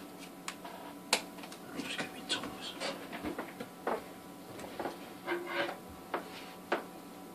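Handling noise: irregular clicks, taps and short scrapes of small plastic spider pots being picked up, turned and set down. The sharpest click comes about a second in and another near the end.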